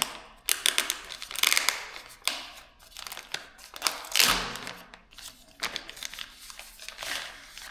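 Packaging crinkling and rustling in irregular bursts as the mount is unwrapped and handled.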